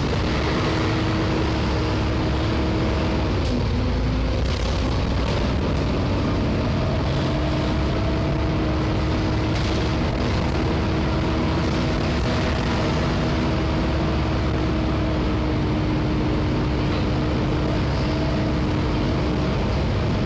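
Volvo B7TL double-decker bus heard from inside its passenger deck while driving: the diesel engine and drivetrain run with a low rumble and a steady whine that holds for several seconds at a time, over road noise.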